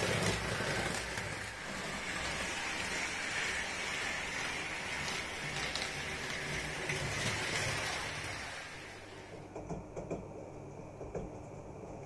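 Piko H0-scale model of the DB VT 612 diesel railcar running steadily along the track, its motor and wheels making a continuous running noise that fades out about nine seconds in. A few faint clicks follow.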